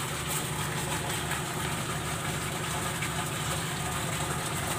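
An engine idling steadily, with a regular low throb.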